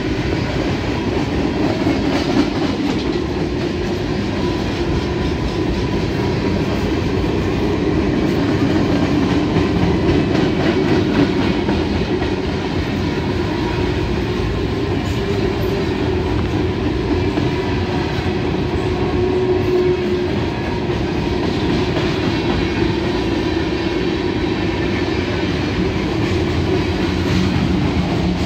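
Freight train cars rolling past, a steady noise of steel wheels running on the rails.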